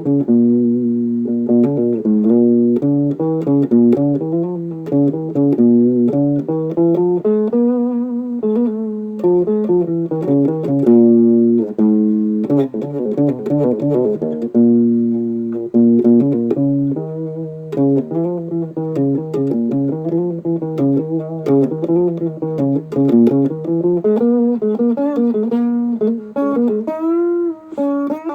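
Instrumental music with plucked guitar notes and a bass line.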